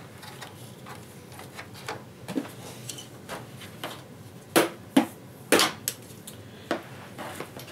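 Small hard objects being handled: scattered light clicks and taps, with three sharper knocks about halfway through, as wiring, a connector and a small tool are picked up and set down.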